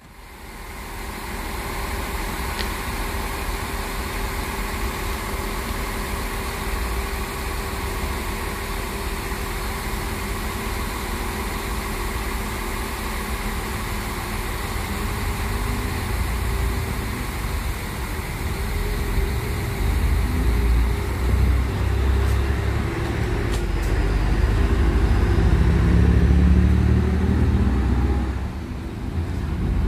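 DSB IC3 diesel multiple unit at a station platform: a steady engine hum, with a deep rumble building and growing loud in the second half, then a brief drop near the end.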